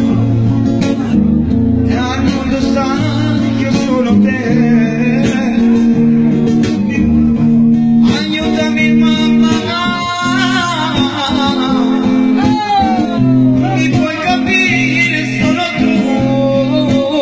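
Live music: a man singing through a microphone, with gliding, ornamented phrases including a long falling run near the middle of the stretch, accompanied by a guitar over a steady low bass line.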